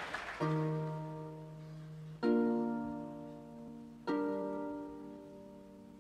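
Crowd applause dies away at the start, then three harp chords are plucked about two seconds apart, each left to ring and fade.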